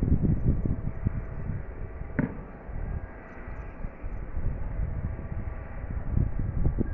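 Distant rumble and faint whine of a large jet airliner's engines, heard through uneven low gusts of wind on the phone's microphone. The rumble eases off in the middle and builds again near the end. There is a single sharp click about two seconds in.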